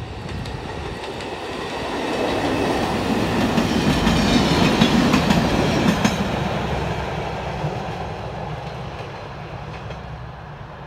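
Vintage Finnish Dm7 diesel railbus train with trailer cars passing close by, its engine and wheels clicking over rail joints. The sound builds, is loudest about four to six seconds in, then fades as the train moves away.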